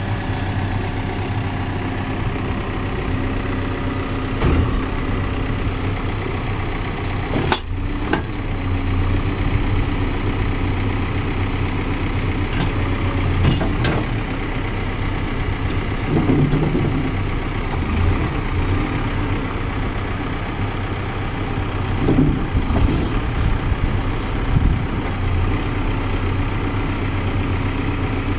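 Caterpillar 420F backhoe loader's diesel engine running steadily, with several short knocks over it.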